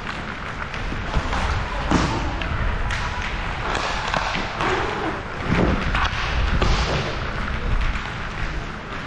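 Hockey play: thuds and sharp knocks of sticks and puck at irregular moments over a steady low rumble of movement.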